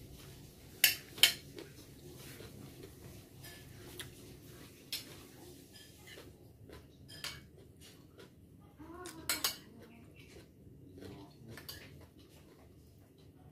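Metal spoon and fork clinking and scraping against a plate during eating: a few sharp clinks, the loudest two close together about a second in, single ones near five and seven seconds, and another cluster around nine seconds.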